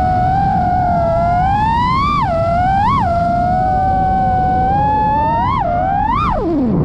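Brushless motors and propellers of a 5-inch FPV freestyle quadcopter (2207 1700kv motors) whining in flight, recorded on the onboard GoPro. The pitch holds fairly steady, jumps up in four short throttle punches, and dives steeply near the end as the throttle is cut, over steady rushing wind noise.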